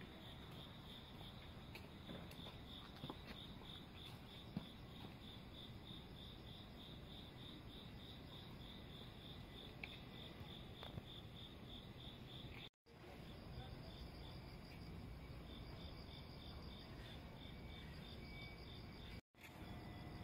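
Insects chirping outdoors in an even, steady pulsing, over a faint low rumble of background noise. The sound cuts out abruptly for an instant twice, about two-thirds of the way through and near the end. After the first break a second, higher chirp is also heard pulsing.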